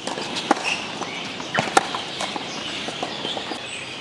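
Tennis ball being struck by rackets and bouncing on a hard court during a rally: a few sharp knocks, one about half a second in and a quick pair about a second and a half in.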